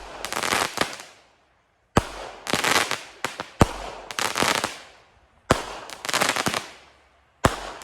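Small 200-gram consumer firework cake firing its shots one after another, about every two seconds: each a sharp launch thump followed within a second by a noisy, crackling aerial burst that fades out.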